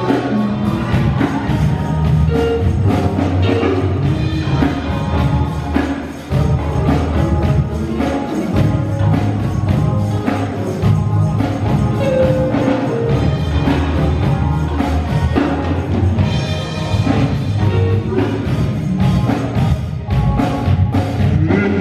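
Live gospel music: a band with drum kit and bass playing an upbeat instrumental passage, with sharp percussive strokes and choir members clapping along.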